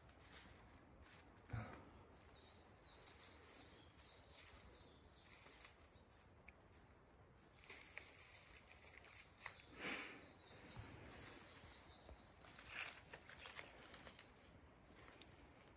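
Quiet outdoor ambience with scattered faint rustles and small knocks: a short thump a second and a half in and a brief rustling burst about ten seconds in.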